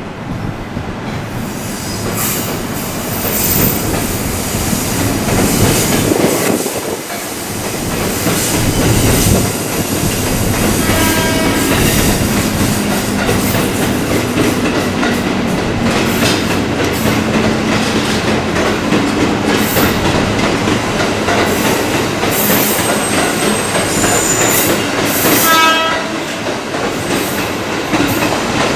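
Train running through the station, a steady rumble of wheels on rail for the whole stretch. Two brief horn blasts come about 11 and 25 seconds in.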